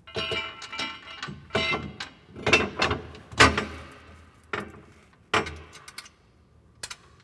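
Steel mounting plates knocking and scraping together as the UTV plow mount plate is fitted up onto the bolts of the vehicle-specific mounting plate: about eight ringing metal clanks, roughly one a second.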